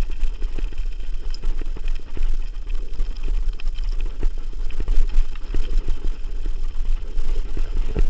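Mountain bike rolling fast over loose gravel: heavy wind rumble on the microphone with a constant run of crunches, clicks and knocks from the tyres on the stones and the bike rattling.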